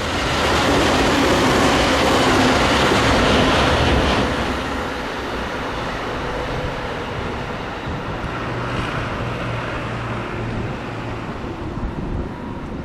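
Freight train running past on the rails at speed, a loud even rush of wheels and cars that starts abruptly, then eases to a steadier, lower rumble after about four seconds.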